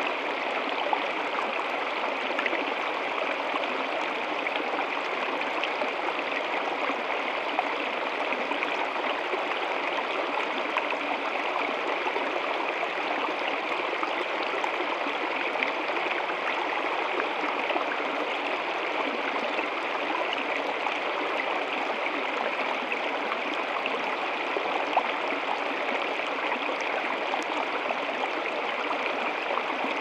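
Small stream cascading over rocks into a shallow pool: a steady, unbroken rush of splashing, gurgling water.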